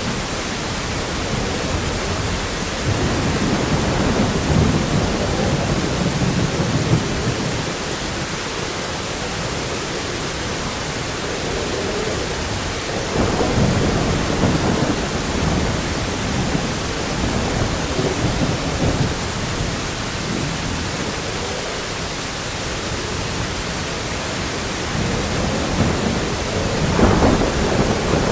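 Thunderstorm sound effect: steady heavy rain hiss with rolling thunder that swells about three seconds in, again around the middle, and loudest near the end.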